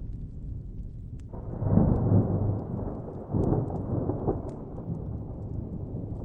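Thunder: a clap breaks in about a second in and rolls on in two surges before fading back into a steady low rumble. The light pops of a crackling fire are scattered over it.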